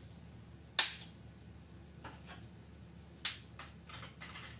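Dry oven-ready lasagna noodles being handled, giving two sharp cracks about two and a half seconds apart, with a few faint clicks between.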